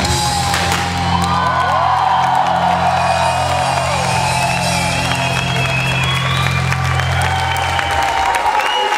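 Music ending on a long held low chord that stops about eight seconds in, while a crowd cheers, whoops and applauds.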